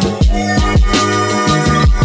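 Background music with a steady beat: a deep kick drum about twice a second under sustained chords.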